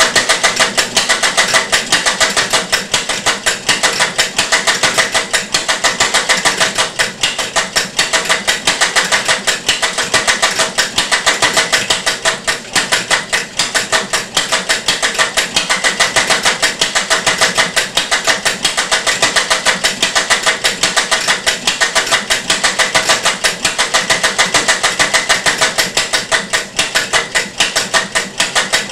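Homemade single-valve engine running under its own power, with a continuous rapid, noisy clatter from its ratchet cam drive. It runs unevenly, which the builder puts down to the ratchet drive causing jitter in the valve timing.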